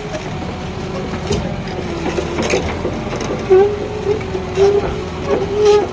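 JCB 51R mini excavator's Perkins diesel running, with a steady whine and a few sharp metallic clanks over it.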